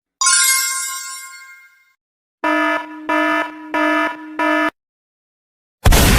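Three stock sound effects in a row. First a bright metallic chime that rings out and fades, then an electronic buzzer sounding four times, then a sudden loud burst of noise near the end.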